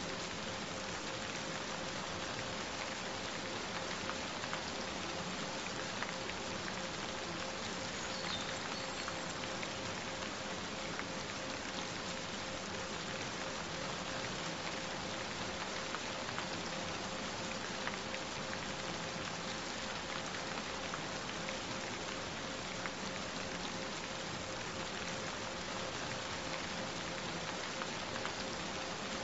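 Steady rain falling, an even hiss of drops with no let-up, with a faint steady tone held underneath it.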